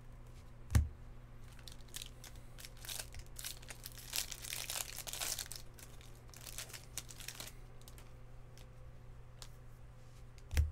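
A stack of baseball cards being flipped through by hand, the card stock sliding and rustling in bursts, with a sharp thump about a second in and another at the very end.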